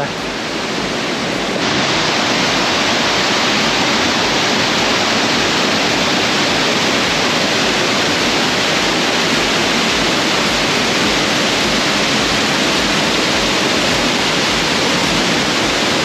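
Steady roar of rushing water from a waterfall and stream in a narrow canyon, close to the microphone; it grows a little louder about two seconds in.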